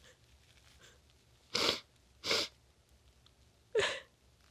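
A woman crying: three short, sharp sniffles, the last with a brief catch in her voice.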